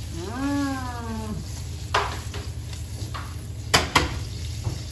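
Cappellacci sizzling gently in thyme butter in a frying pan, with a clatter of the pan about two seconds in and two sharp metal clinks close together near the end. A short hummed vocal sound comes early on.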